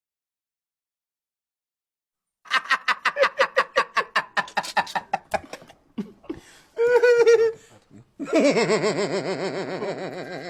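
A person laughing: about two seconds of silence, then quick ha-ha-ha laughter at about five bursts a second, a short held vocal sound about seven seconds in, and a longer run of laughter that fades near the end.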